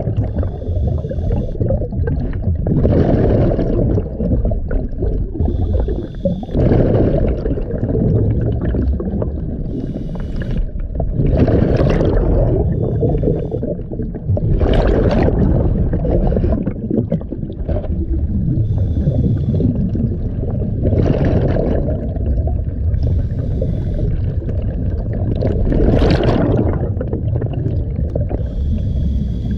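A diver's scuba breathing heard underwater: a rush of exhaled bubbles every three to four seconds, with fainter regulator hiss between them, over a steady low rumble.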